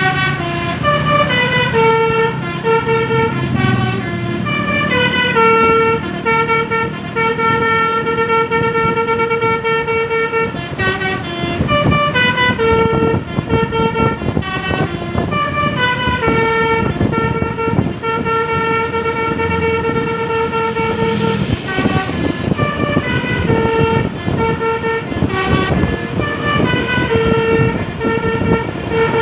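Bus's telolet basuri musical air horn playing a long melody of stepped notes, with falling runs, held notes and quick repeated short notes. A steady rumble of vehicle noise sits underneath.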